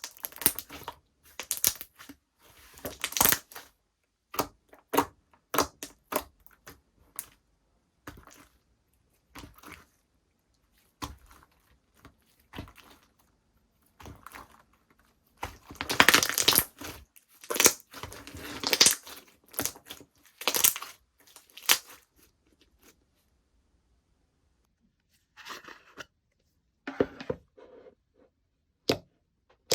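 Slime being worked by hand, squished, stretched and poked, giving a run of short clicks and noisy bursts that are densest and loudest around the middle, with a quiet pause of a few seconds later on.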